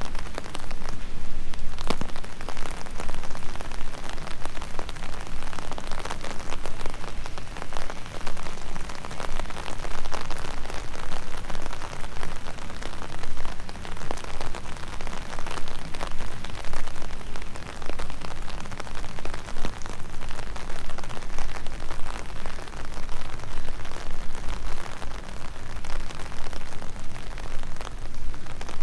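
Steady rain falling, with many sharp individual drop ticks throughout.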